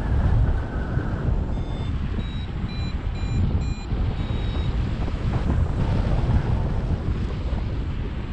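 Airflow buffeting the microphone during a paraglider flight, with about half a dozen short high beeps from the pilot's variometer, the climb tone, in the first half.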